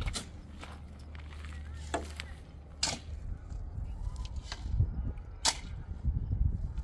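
A few sharp knocks or cracks: three loud ones a few seconds apart and some fainter ones, over a low rumble.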